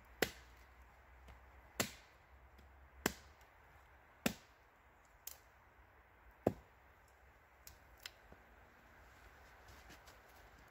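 Hatchet chopping wood on a log: six sharp strikes about a second and a quarter apart, the fifth lighter, then two light taps about eight seconds in.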